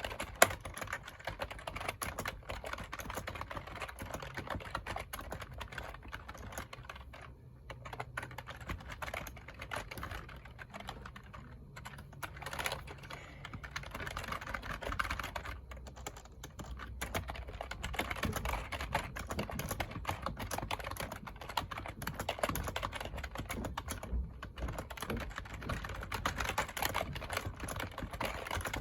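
Continuous typing on a computer keyboard: rapid clicking keystrokes, with a few brief pauses.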